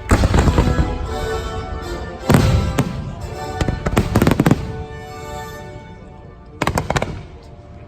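Fireworks bursting over the show's music. There is a loud boom at the start, another about two seconds in, a cluster of bangs around four seconds, and a quick run of crackling pops near the end.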